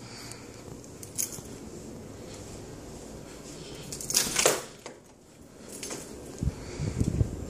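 Handling and movement noises from a handheld phone carried through an empty room: a sharp click about a second in, a brief louder scraping rush around four seconds in, then a run of low thumps near the end.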